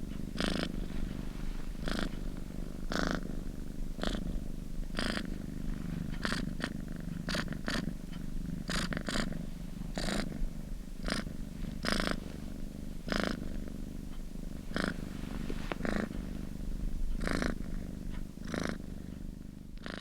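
Domestic cat purring steadily, the purr pulsing about once a second.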